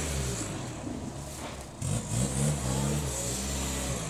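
Off-road competition vehicle's engine revving: it falls away, then revs up again a little under two seconds in and holds there.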